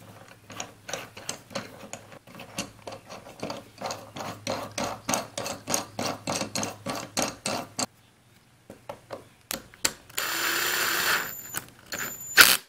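Steel threaded rod of a wooden tail vise being turned through its metal bushings, giving a run of small clicks and scrapes about three a second. Near the end a cordless drill-driver runs for about a second and a half with a high whine, tightening the lock collar on the rod, then gives a short burst that is the loudest sound.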